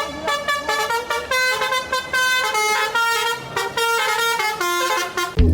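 Telolet bus horn playing its tune: a quick run of short horn notes stepping up and down in pitch.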